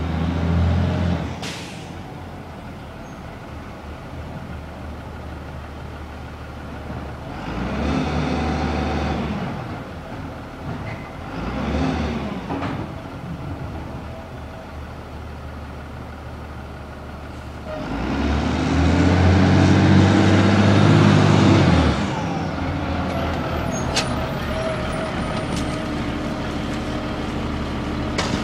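Diesel compost collection truck idling, its engine revving up in several surges of a second to a few seconds each, the longest and loudest about two-thirds of the way through.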